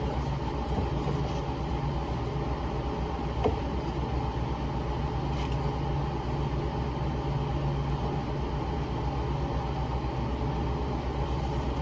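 A steady low mechanical hum, with one faint click about three and a half seconds in.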